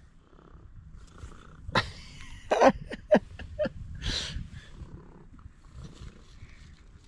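A domestic cat purring close by, a steady low rumble. A few sharp short taps and rustles come about two to four seconds in.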